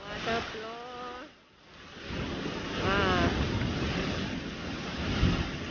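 Steady rush of heavy rain and runoff water cascading down concrete steps, mixed with wind noise on the microphone; it swells in about two seconds in.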